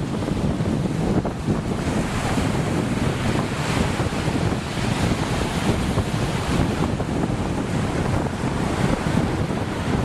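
Wind buffeting the microphone with a heavy, gusty rumble, over the wash of the sea; a hissing wash swells up about two seconds in and carries on.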